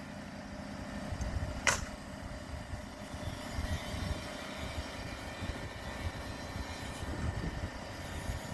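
A pneumatic framing nailer fires once, a sharp crack, a little under two seconds in, over a steady low rumble.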